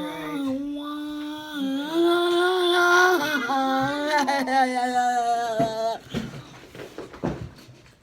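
A voice singing or humming long, wordless held notes that slide slowly up and down, stopping about six seconds in. After that come a few light clicks and rattles of plastic pieces being handled.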